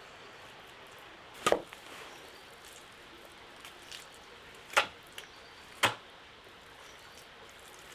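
Three sharp chopping strikes of a blade into wood: one about a second and a half in, then two close together around five to six seconds in, over a steady faint hiss.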